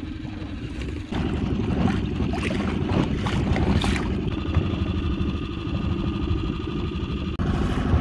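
A boat's motor running steadily at trolling speed, with wind and water noise; it gets louder about a second in. A steady high whine joins it about halfway through for around three seconds.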